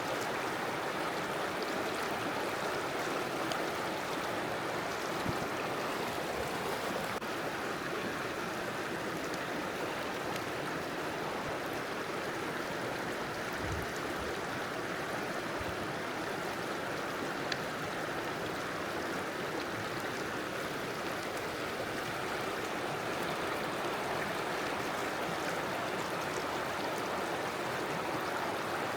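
A river flowing with a steady, even rush of water.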